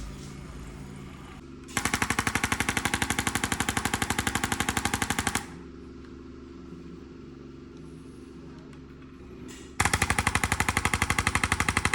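Rapid, evenly spaced mechanical pounding at many strokes a second, in two bursts of about three and a half seconds that start and stop abruptly, with a low steady hum between them.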